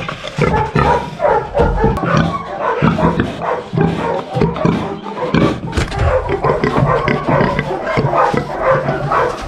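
Domestic pig grunting in a quick, irregular run of short grunts close to the microphone as it snaps at a person's hand: an agitated, aggressive pig.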